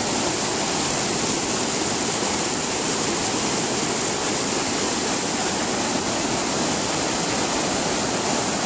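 River water pouring over a low dam crest and churning in the white water below: a steady, even rushing.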